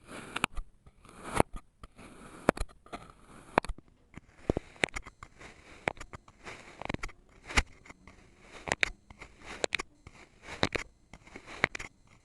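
Kinetic sand being cut and crushed close up: a string of crunchy strikes, about one a second, with soft gritty scraping between them.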